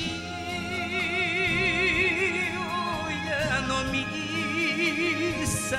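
Male enka singer singing long, held notes with wide vibrato over a live backing band.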